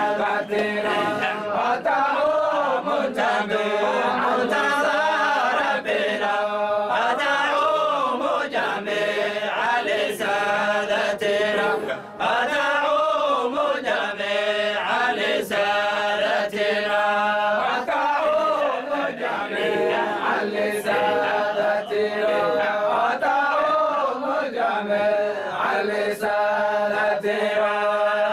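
A group of men chanting a Sufi dhikr of the Zayla'i tradition together, the same short melodic phrase repeating over and over.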